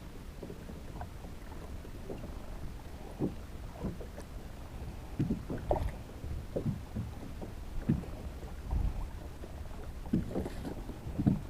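Water lapping and knocking against a kayak's hull in short, irregular thumps, over a steady low rumble of wind on the microphone.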